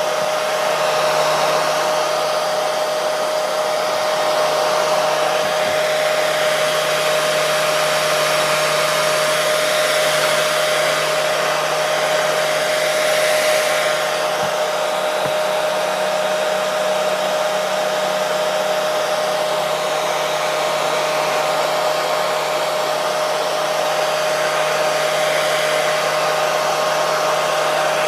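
Hair dryer running steadily, an even airy rush with a constant motor hum, played continuously as white noise to soothe babies to sleep.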